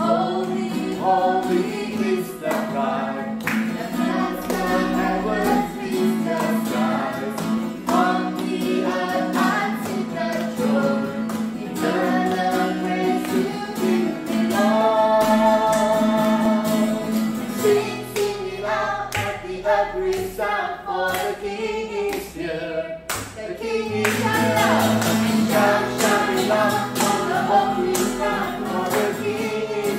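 Worship song in a church service: a group of voices singing together with instrumental backing.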